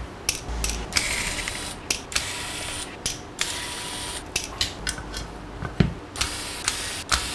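Screwdriver backing out the backplate screws of a graphics card, a run of irregular clicks and small metal knocks as the screws and plate come loose.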